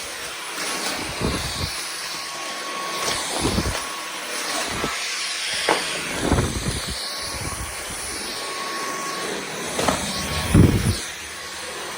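Dyson V15 Detect cordless stick vacuum running with a steady hiss and a faint high whine. Short low thuds and rumbles come every second or two.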